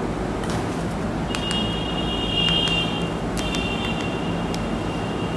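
Steady low background hum and noise with a few sharp clicks. A high-pitched whine comes in about a second in and runs on with a short break.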